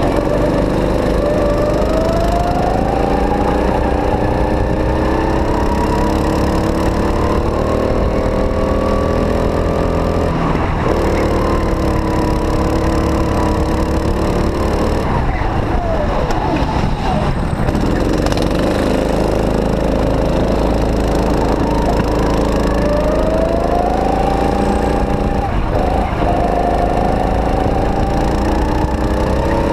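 Go-kart engine under the onboard camera, running hard and pulling through the laps. Its pitch climbs steadily under acceleration and drops sharply as the kart brakes for corners, about ten seconds in, again from about fifteen to eighteen seconds, and near twenty-six seconds.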